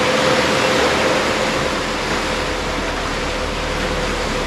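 Steady rush of wind and water on a fishing boat under way, with a faint steady hum underneath.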